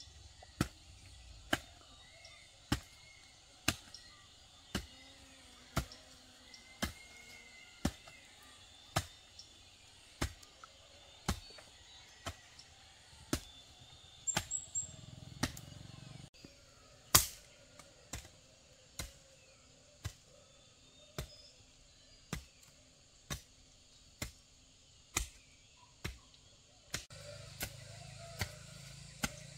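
Steady chopping blows of a hand tool, about one a second, with a quick flurry of lighter strikes about halfway through and one harder blow just after.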